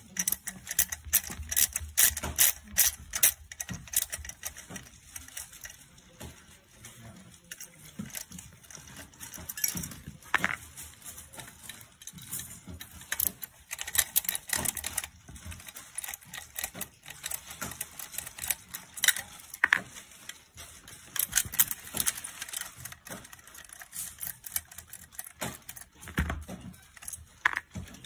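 Irregular sharp clicks and light metallic rattles as the stamped metal bracket and small screws of a Mercedes-Benz touchpad unit are worked with a screwdriver and handled while the unit is taken apart.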